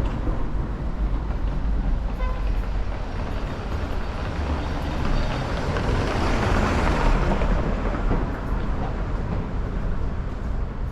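Street traffic: motor vehicles running along the street with a steady low rumble, one passing close and swelling louder about six to seven seconds in. A brief faint tone sounds about two seconds in.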